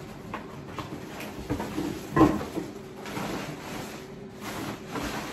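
Kitchen clatter as dishes are handled: scattered knocks and clicks, the loudest a single knock with a short ring about two seconds in.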